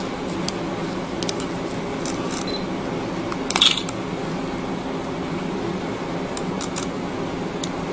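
Small metallic clicks from a steel needle holder being worked while tying sutures, with a brief louder clicking rattle about three and a half seconds in, over a steady low room hum.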